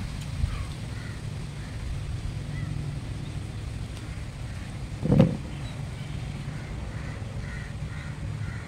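Outdoor background: a steady low rumble with faint, scattered bird calls, and one short, louder sound about five seconds in.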